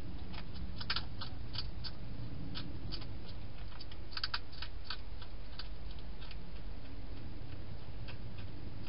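Hedgehog eating inside a plastic feeding box: irregular small crunching clicks, bunched about a second in and again around four seconds, over a steady low hiss.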